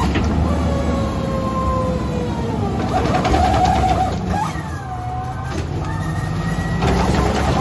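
Autocar ACX rear-loader garbage truck's engine running with its hydraulics, a low rumble under whining tones that slide slowly in pitch, as the gripper cart tipper raises a trash cart toward the hopper.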